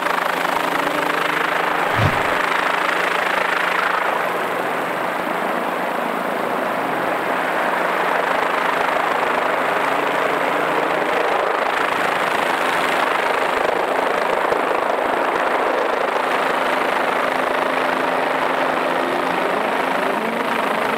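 Helicopter engine and rotor noise, a loud, steady drone that stays even throughout. There is a brief low thump about two seconds in.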